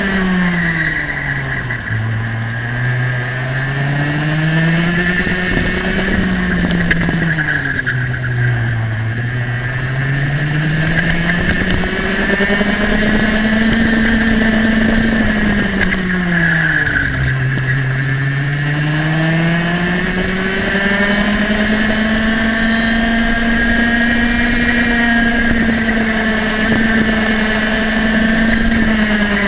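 Single-cylinder two-stroke kart engine running at high revs, near its top speed on the straights. Its pitch drops sharply three times, about 2, 8 and 17 seconds in, as the throttle comes off for corners, then climbs back each time under acceleration, and it starts to drop again at the very end.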